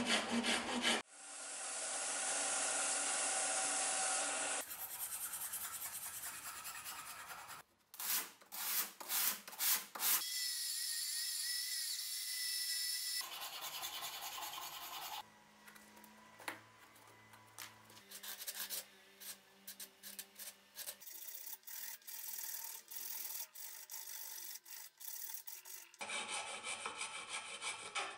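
Hand rasp and files shaping the wooden handle of a knife clamped in a vise: bursts of rapid scraping strokes alternate with steadier rubbing, and the middle stretch is quieter.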